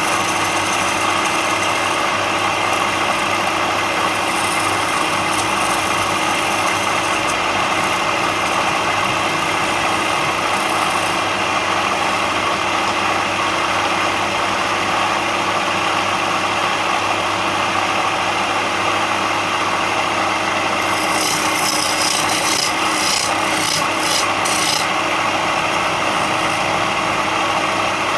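Power woodworking tool running steadily with a constant motor hum while wood is rubbed and abraded against it, with a scratchier stretch of rasping about three-quarters of the way through.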